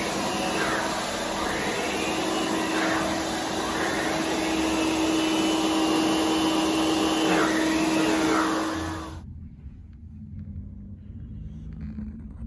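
Roboclean vacuum cleaner running with its mini power nozzle on an upholstered chair seat: a loud, steady rush and hum, with a whine that rises and falls in pitch as the nozzle is worked back and forth. The sound cuts off suddenly about nine seconds in, leaving only a faint low rumble.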